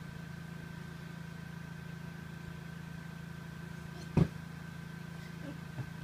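Steady low background hum with a faint steady high tone, broken about four seconds in by one short, loud thump.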